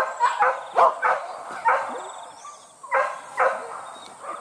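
Hunting dog barking in quick repeated barks, about two or three a second, with a short pause midway before a few more barks: a dog giving chase on a wild boar.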